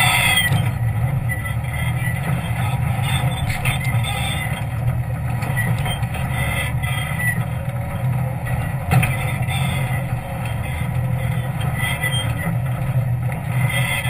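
Jeep engine running steadily under load as it crawls up a rocky trail, with occasional knocks and clatter from the rocks underneath; the sharpest knock comes about nine seconds in.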